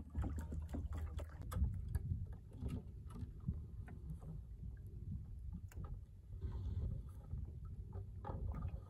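Water lapping against a small boat's hull, with scattered light knocks and a steady low rumble underneath.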